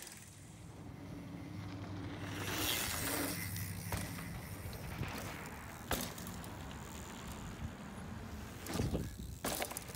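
Mountain bike rolling over a dry dirt trail: tyre and gravel noise, a sharp knock about six seconds in, and two louder rushes near the end.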